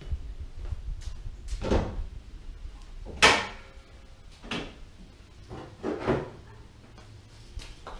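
Knocks and clunks as the hood of a 2012 Scion tC is released and raised. The loudest is a sharp clunk about three seconds in, with a few softer knocks after it.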